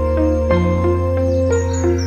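Background music: a calm new-age instrumental with a held bass note under a repeating melody of short notes, and a few short high chirps near the end.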